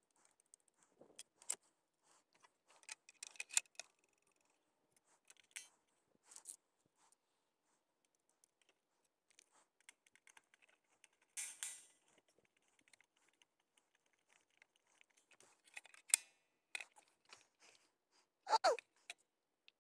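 Faint scattered clicks, taps and rattles of a RAM laptop-mount tray and its screws and springs being handled and fitted together by hand, the sound sped up.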